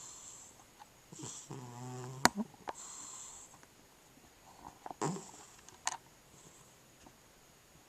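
A cat snoring: breathy snores come several times, one with a low buzzing tone about a second and a half in. A few sharp clicks cut in, the loudest just after that buzzing snore.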